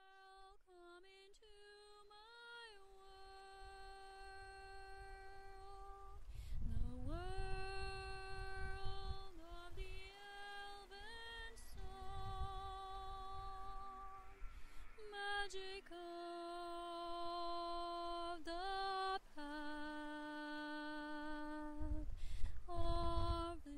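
A woman singing without words, slow and unaccompanied, holding long notes with a slight waver and sliding up or down into each new note. A low rumble rises underneath twice, about a third of the way in and near the end.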